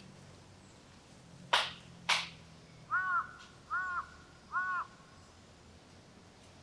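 Two sharp cracks about half a second apart. Then a crow caws three times, short evenly spaced caws.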